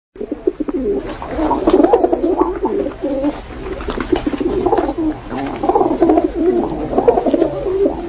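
Rock pigeons cooing, a continuous, wavering, throaty cooing with many short clicks mixed in.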